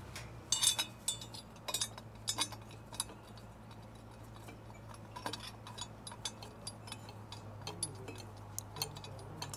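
Irregular light metallic clinks and ticks of tools and exhaust parts being handled, over a steady low hum. The clinks are densest in the first two and a half seconds.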